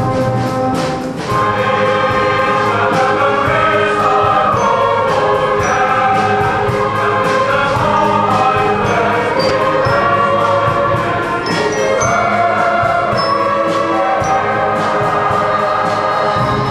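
Choir singing with orchestral accompaniment over a steady beat; a held orchestral chord gives way to the singing about a second in.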